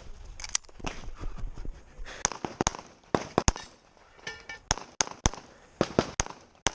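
Handgun shots in a practical-shooting stage: about ten sharp pistol reports at irregular intervals, some in quick pairs, with fainter shots in between.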